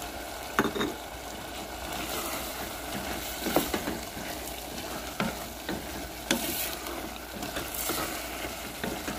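Vegetables sizzling in a metal pot as freshly added diced potatoes are stirred in with a wooden spatula, with several sharp knocks and scrapes of the spatula against the pot.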